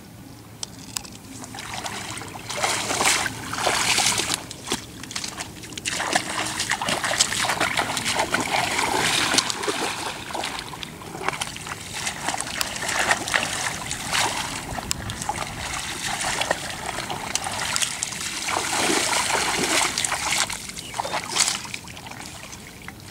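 Splashing and sloshing of shallow muddy paddy water as people wade through it and work in it with their hands, in irregular bursts, quieter about the first two seconds and near the end.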